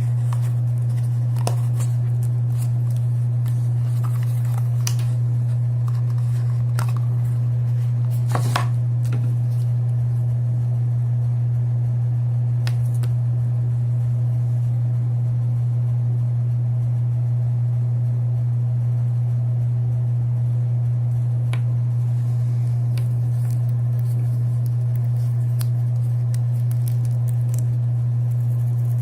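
A loud steady low hum, with scattered faint clicks and rustles of small items and packaging being handled, the most distinct about eight seconds in.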